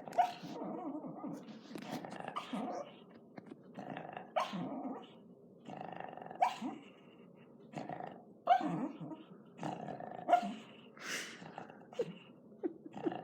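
A sleeping dog snoring, one snore about every two seconds, each starting sharply.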